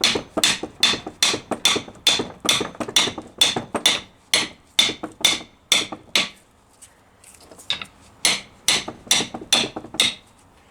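Hammer blows on metal, knocking a fitted part out of a Rover P6 differential: a steady run of sharp, ringing strikes about two or three a second, a short pause a little past halfway, then more strikes.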